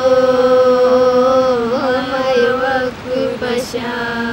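Women singing a Kalasha folk song in long, held notes, with a short break about three seconds in before the next note.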